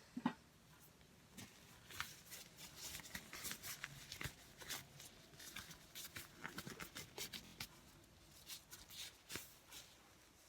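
Slime being squished and poked by hand close to the microphone: irregular small clicks and crackles, some in quick runs.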